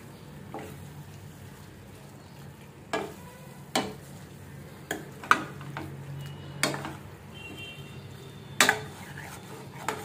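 A metal spoon stirring chicken curry in a stainless steel pan, clinking sharply against the pan about eight times at irregular intervals, over a steady low sizzle of the chicken frying in its masala.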